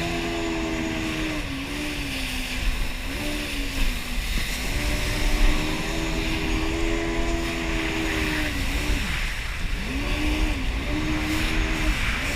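Yamaha jet ski engine running under way, its pitch dropping and climbing again several times as the throttle is eased off and reopened.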